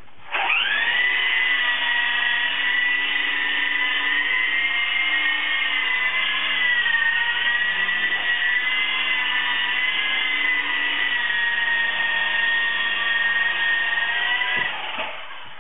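Huan Qi Lama V3 coaxial RC helicopter's small electric motors and counter-rotating rotors spinning up with a rising whine, then running at a steady high whine whose pitch wavers slightly with throttle as it hovers low, and winding down near the end.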